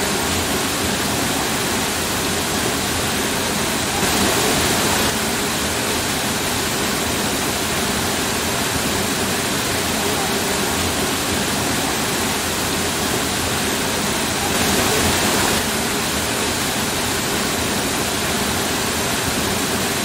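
A waterfall rushing steadily, falling water splashing into a rock pool, swelling a little louder twice for about a second.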